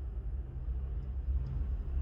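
Steady low rumble of busy road traffic.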